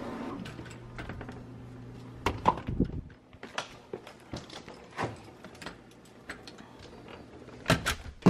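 Scattered light knocks and clicks, with a faint low steady hum for stretches.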